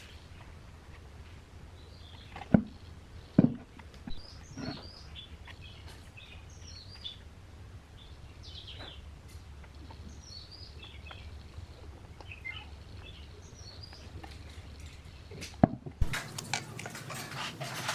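A few sharp knocks of something being handled, over a steady low hum, with small birds chirping faintly in the background. About two seconds before the end the hum stops suddenly and a louder, busier background takes over.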